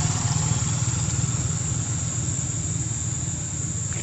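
An engine idling steadily, a low pulsing hum, with a thin steady high whine above it.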